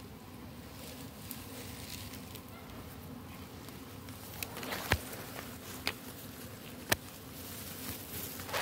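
Insects buzzing steadily in grass, with three sharp clicks about a second apart in the second half.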